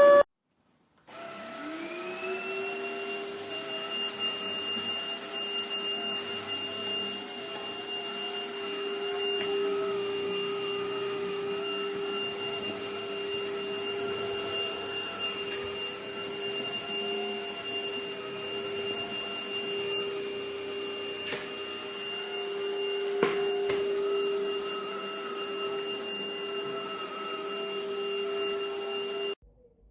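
Stanew 22.2V 150W cordless stick vacuum's motor spinning up about a second in, then running steadily with a high, thin whine over the rush of air. There are two brief clicks in the last third, and the motor cuts off suddenly just before the end.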